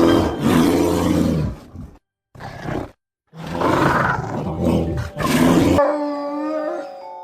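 A large animal roaring: loud, rough roars in several bouts separated by brief silences, giving way to music with held notes near the end.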